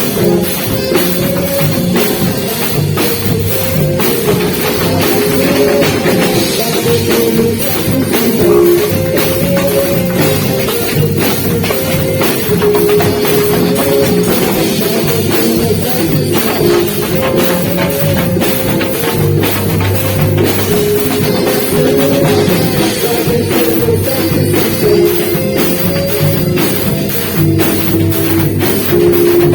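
Live band playing a beiradão medley: a drum kit keeps a steady beat under a stepping saxophone melody.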